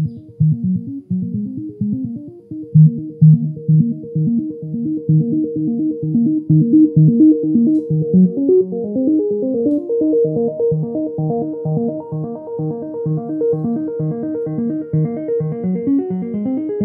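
Electronic music with a fast, repeating run of synth notes, played through a homemade subwoofer in a cardboard enclosure. Most of the sound sits low, and higher notes come in over the second half.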